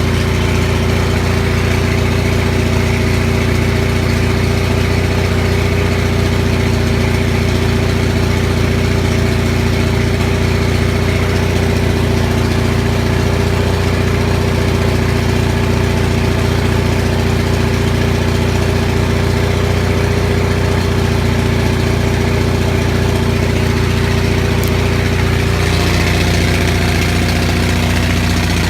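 Onan 6.5 kW gasoline generator running steadily with no muffler fitted, its spark plugs just cleaned of heavy fouling. Its note shifts slightly near the end.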